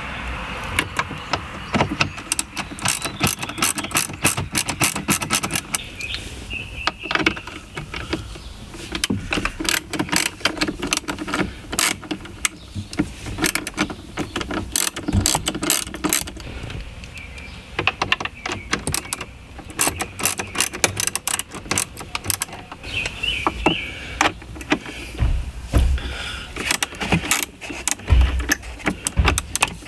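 Hand ratchet with a 7 mm socket clicking in quick runs as it backs out the screws holding a car's dashboard nav screen, with short pauses between runs. A few dull knocks come near the end.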